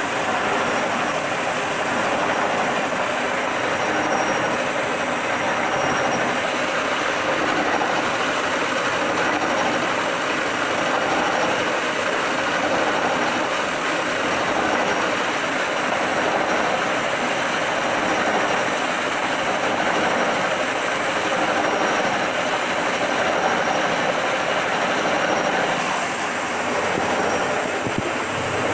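Milling cutter taking a shallow, wide cut in a steel block: a steady, continuous metal-cutting noise from the machine under load.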